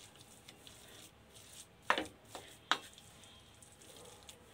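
Wooden spatula stirring mashed potato stuffing in a stainless steel pan, with two sharp knocks of the spatula against the pan about two seconds in, under a second apart.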